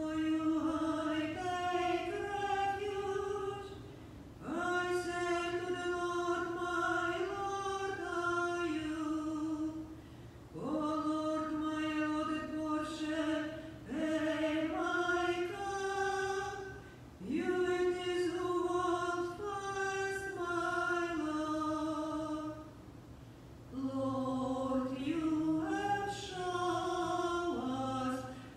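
A woman cantor singing the responsorial psalm solo, unaccompanied-sounding chant in several phrases with short breaks for breath between them.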